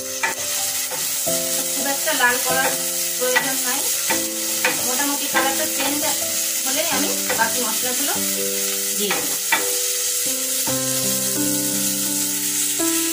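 Sliced onions sizzling in hot oil in an aluminium pan, stirred with a wooden spatula that scrapes and now and then knocks against the pan. Instrumental background music plays underneath.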